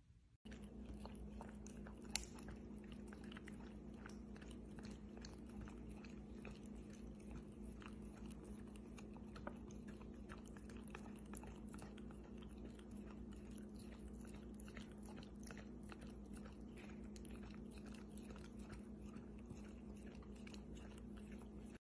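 Poodle licking food off a plastic spoon: faint, quick wet licks and mouth smacks over a steady low hum, with one sharper click about two seconds in.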